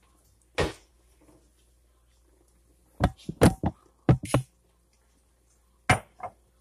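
Sharp knocks and clatters of things being handled: one about half a second in, a quick run of about six from about three to four and a half seconds, and two more near the end.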